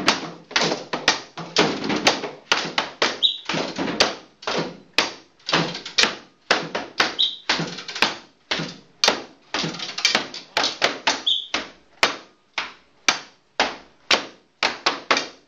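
Group percussion on found objects such as sticks and boards: sharp taps and knocks in a steady repeating rhythm, about two to three strokes a second. A short high note recurs about every four seconds as part of the pattern.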